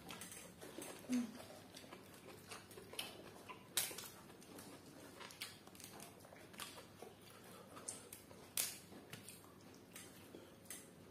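Eating sounds: chewing, lip smacks and scattered sharp clicks from people eating with their hands, the loudest clicks about four and nine seconds in. A brief low hum-like tone about a second in.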